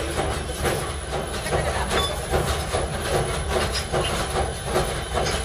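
Workshop machinery running steadily, with a low hum and a fast, irregular rattling clatter.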